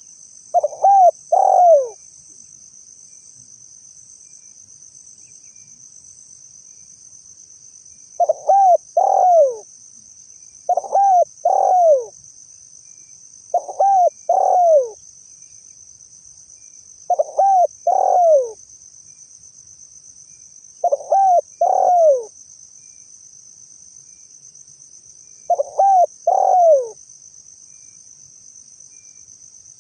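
Spotted dove (tekukur) cooing: seven three-note coo phrases, each about a second long with the last note falling away, with a long pause after the first and then every three to four seconds. A steady high insect trill runs underneath.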